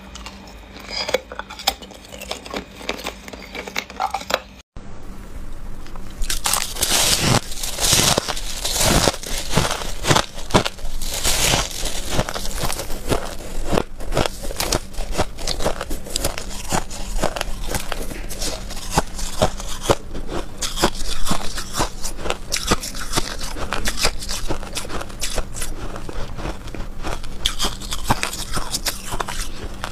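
A person biting and chewing ice close to the microphone. There are a few sparse crunches on a hard, clear ice cube, then a brief dropout about five seconds in, followed by dense, continuous crunching of white, crumbly ice.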